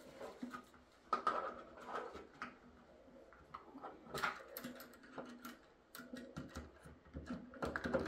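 Light, irregular clicks, taps and scrapes of smart-deadbolt parts being handled against a door as the exterior assembly is fitted and its wire is fed through the bore hole.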